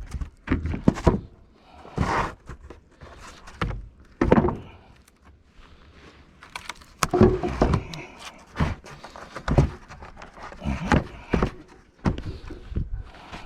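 Wooden boards being handled: irregular thunks and knocks, loud and sudden, a few seconds apart, with no saw running.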